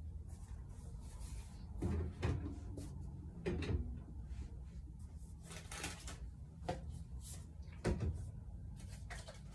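Plastic toiletry bottles knocking and clattering as they are handled and set on wire shelving: a handful of irregular knocks, the loudest about two and eight seconds in.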